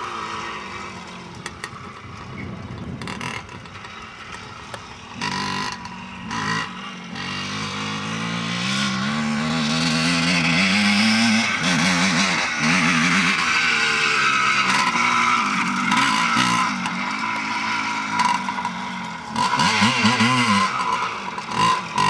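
Dirt bike engine revving, its pitch rising and falling with the throttle. It is faint at first and grows much louder from about eight seconds in, with more throttle swells near the end.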